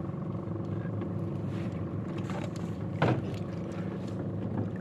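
Boat engine running at a steady drone. About three seconds in, a brief louder sound rises over it.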